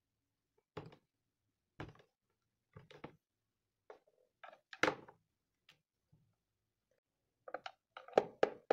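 Scattered light knocks and clicks of a screwdriver and rubber feet against the plastic underside of an induction cooktop, as the feet are prised out and set down on the casing. The loudest knock comes about five seconds in, and a quick run of clicks follows near the end.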